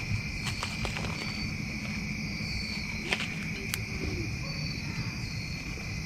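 A steady chorus of crickets, with a campfire crackling and popping now and then, a few sharp pops in the first second and a couple more a few seconds in.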